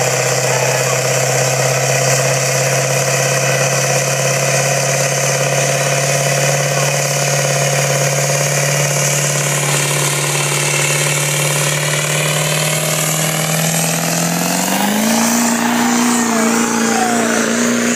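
Chevrolet Silverado 2500HD's Duramax V8 diesel, hooked to a pulling sled, holding a steady fast idle with a high turbo whistle, then revving up sharply about fifteen seconds in as the truck launches the pull under full load.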